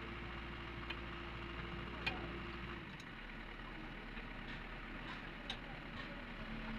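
Steady mechanical hum with a few faint, sharp metal clicks and taps from hand work on the truck's parts; the hum changes pitch about three seconds in.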